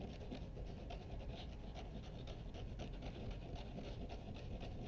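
Hand leather rougher scratching the back of a small leather piece in quick, faint, repeated strokes, about four a second, scuffing the slick surface so the glue will grip.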